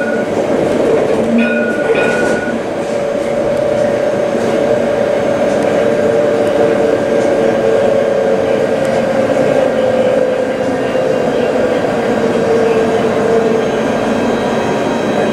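Alstom Citadis tram running, heard from inside the driver's cab: a steady motor whine over rumbling wheel noise, the whine falling slowly in pitch through the second half as the tram slows into a stop. Two short beeps sound about two seconds in.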